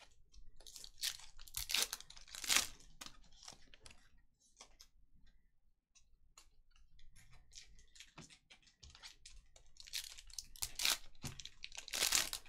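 Trading card pack wrappers being torn open and crinkled, with cards handled, in irregular rustling bursts; the loudest come about two and a half seconds in and again near the end.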